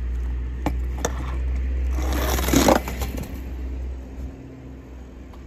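Toy die-cast cars being handled: two light clicks, then a brief, louder scrape about two seconds in, over a low rumble.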